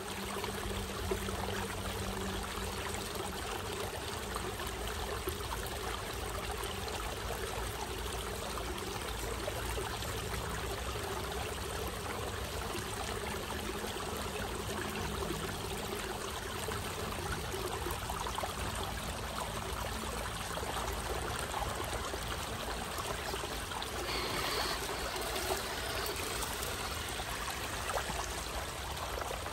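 Shallow stream trickling steadily over stones, a continuous rush of running water.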